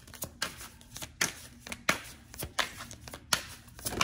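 Tarot cards being shuffled by hand: a run of irregular, sharp card snaps and slaps, the loudest a little past one second, near two seconds and past three seconds.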